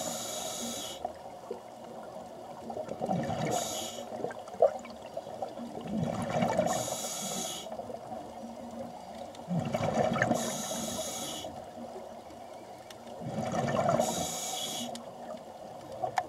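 Scuba diver breathing through a regulator underwater, a steady cycle about every three and a half seconds: a short hiss of the demand valve on each inhale, then a bubbling rumble of exhaled air on each exhale.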